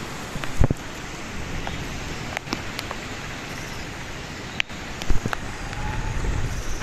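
Storm wind and rain: a steady rush of noise with scattered sharp ticks of raindrops, and gusts thumping on the microphone about half a second in and again near five seconds.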